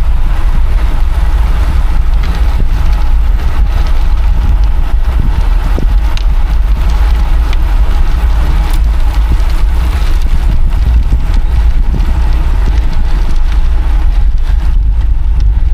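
Wind rushing over a cyclist's camera microphone at riding speed: a loud, steady low rumble with a hiss above it.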